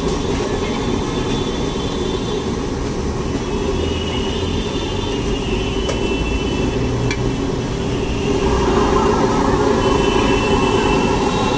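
Steady street-stall din: a constant low rumble like passing traffic, with a light hiss above it. It grows a little louder and brighter about eight seconds in.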